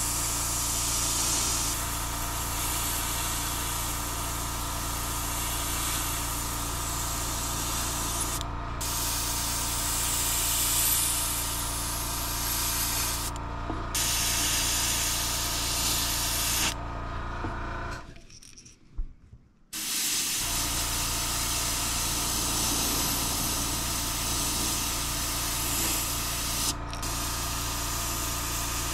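Airbrush hissing as it sprays paint at around 20 PSI, in several long passes broken by short pauses where the hiss stops, over a steady low hum. A little past halfway everything drops to near silence for about two seconds.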